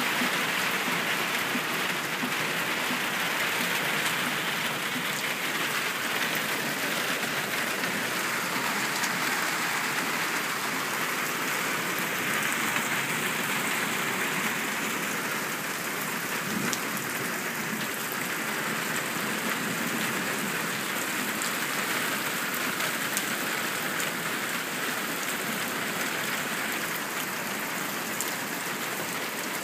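Heavy rain pouring down in a steady, even hiss as it falls on the ground and outdoor surfaces.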